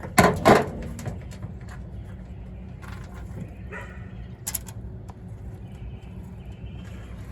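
Two short, loud animal calls, like barks, right at the start, then a few light scattered clicks and rattles of small metal parts being handled.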